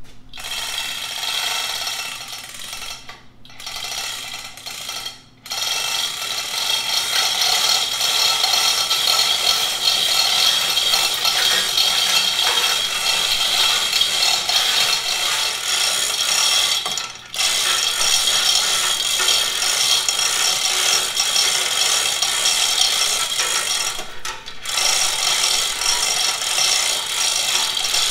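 Manual chain hoist being hauled by hand, its chain clattering and ratchet clicking steadily as it lifts a cast-iron stoker engine, with a few brief pauses between pulls.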